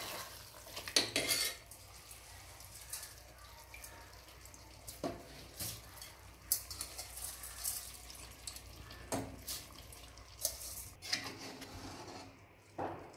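A steel slotted ladle scraping and clinking against the inside of an aluminium pressure cooker while rice is stirred into chicken gravy, with scattered short clinks.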